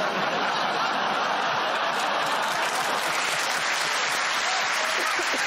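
Studio audience applauding steadily, an unbroken round of clapping.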